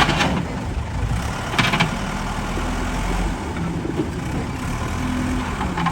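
Heavy diesel engine, most likely the backhoe's, running steadily, with two brief sharp noises at the start and about one and a half seconds in.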